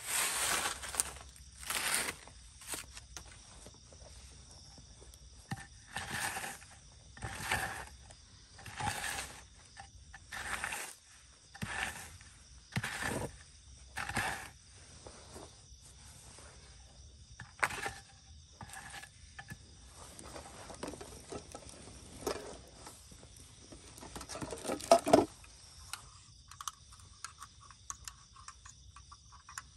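Insects chirring steadily, under a series of short rustling and scraping noises about every second and a half as things are shifted over a dirt floor and camping gear is handled. A louder clatter comes near the end.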